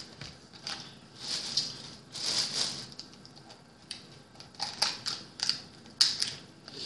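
Cooked blue crab being broken apart by hand: the shell crackles and crunches, with several sharp snaps in the second half as the top shell is pried off.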